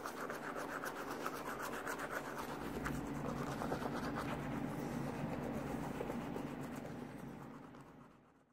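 Manual toothbrush scrubbing teeth in quick back-and-forth strokes, bristles rasping steadily, fading away near the end.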